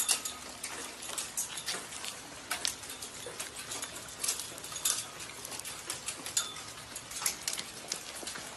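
Small volcanic cinders (lapilli) from Etna falling and clicking on hard tiles: irregular sharp ticks, several a second, over a steady hiss.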